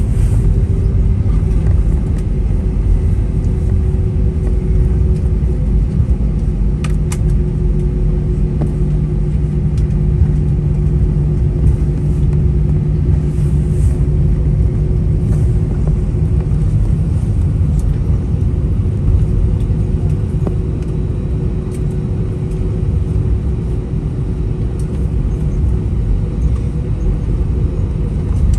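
Cabin noise inside an Airbus A320 during landing: a steady low rumble from the airliner with a steady engine hum that drops slightly in pitch, easing a little in the second half.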